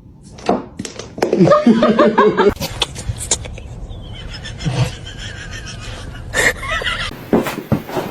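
A person laughing, with a few sharp clicks and knocks.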